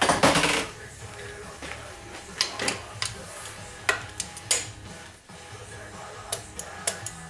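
Sharp metal clicks and clinks of a torque wrench and socket tightening the front pump bolts on a TH400 automatic transmission, with one louder clank at the start and scattered single clicks after it.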